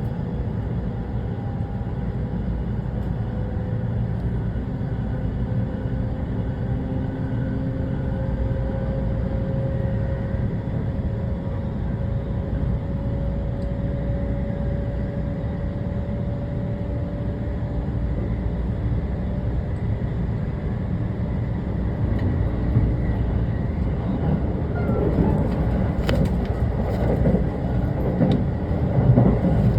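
Electric commuter train running, heard on board: a steady rumble of wheels on rail under a faint motor whine that slowly rises in pitch. In the last several seconds the rumble grows louder, with a run of irregular knocks and clatter from the wheels over the track.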